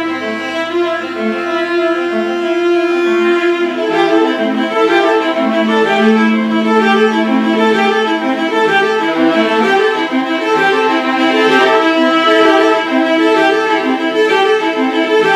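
Bowed string instruments, a violin and a cello, playing together. They hold long notes at first, then move to quicker notes from about four seconds in.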